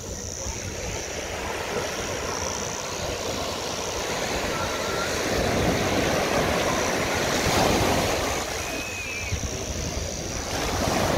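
Small waves breaking and washing up the sand, with wind buffeting the microphone. The wash swells about halfway through and eases again near the end.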